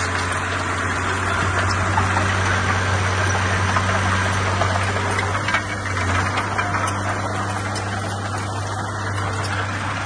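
Komatsu D20P crawler bulldozer's diesel engine running steadily as it pushes earth, with a deep even hum.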